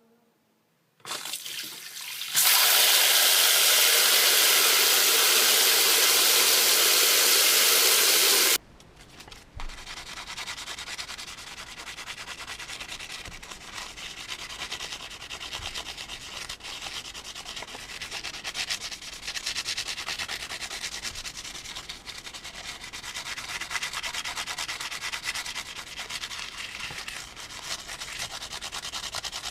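A loud, steady rushing noise for about six seconds that cuts off suddenly. It is followed by a toothbrush scrubbing the plastic parts of a disassembled Sony remote control in fast, continuous back-and-forth strokes.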